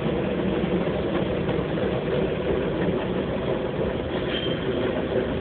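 Cat purring steadily and close to the microphone, a continuous low rumble.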